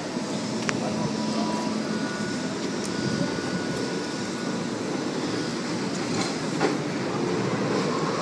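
Manyosen MLRV1000 low-floor tram running past at close range, its motor and wheels on the rails giving a steady rumble with a thin whine for a few seconds.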